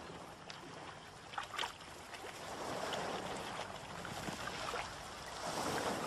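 Steady wash of sea water on a rocky shore, with a few faint clicks about a second and a half in.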